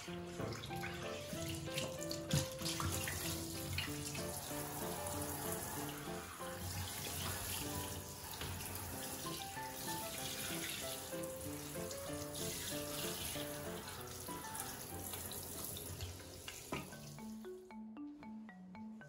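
Handheld shower head spraying water, running steadily over a wet cat's fur, under a background music melody. About two seconds before the end the water stops, leaving only a light mallet-percussion tune.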